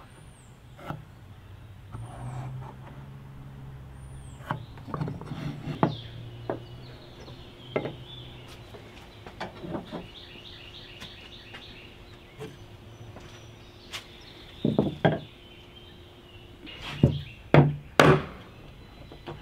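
Hand-tool woodworking: scattered knocks and clatter of wood and tools being handled, with birds chirping in the background. Near the end come three sharp strikes about half a second apart as a chisel is driven into the wood to chop a dado.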